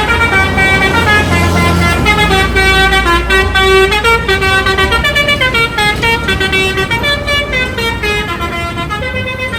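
Bus 'telolet' multi-tone air horn playing a tune, several notes sounding together and stepping to new pitches two or three times a second, over a steady low engine rumble.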